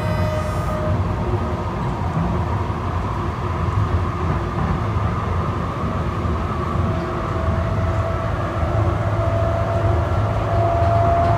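Light-rail car of a Denver RTD train running on the track, heard from inside the car as a steady low rumble. Over the last few seconds a whine rises slowly in pitch.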